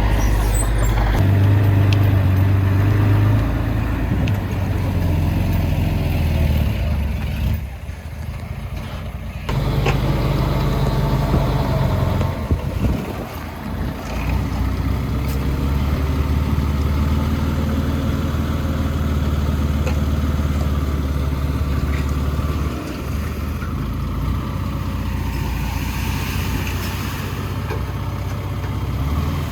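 Heavy diesel engines of earth-moving machinery running. The engine note steps up and down several times as the throttle or the shot changes.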